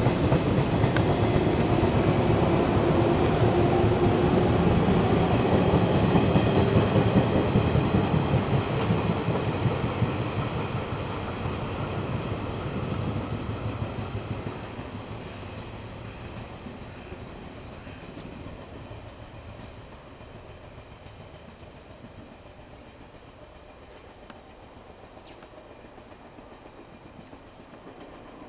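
Electric multiple-unit train running along the line, its wheels clacking over the rail joints. It is loud at first, then fades away from about ten seconds in as the train recedes.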